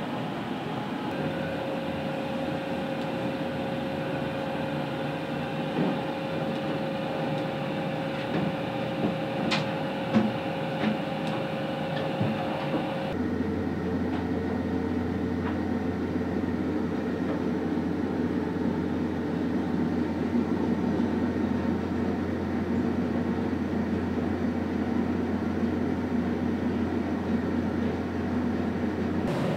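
Steady hum of a ship's onboard machinery and ventilation, with a thin steady tone over it and a few faint clicks in the first half. About halfway through, the sound changes abruptly to a deeper, even hum.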